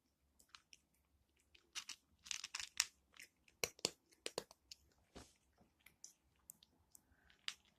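Cat chewing dry kibble: a string of irregular, sharp crunches, coming thickest from about two seconds in.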